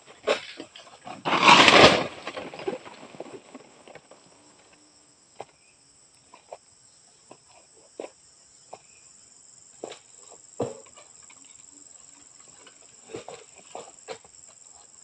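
A steady high-pitched insect drone, with a loud rustling crash lasting about a second near the start, then scattered sharp knocks and snaps from a long pole sickle working at oil palm fronds.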